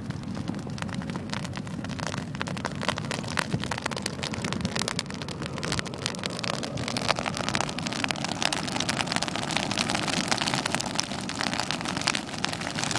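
Burning dead grass crackling and popping, a dense patter of small sharp pops over a low rumble, growing thicker and louder about halfway through as the fire takes hold.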